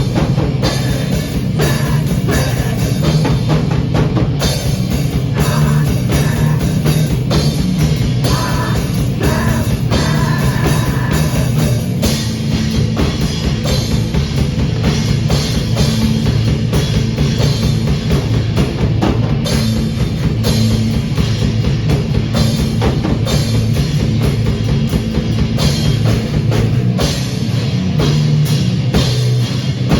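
Loud rock music played by a band: drum kit pounding steadily under distorted electric guitar, with no singing.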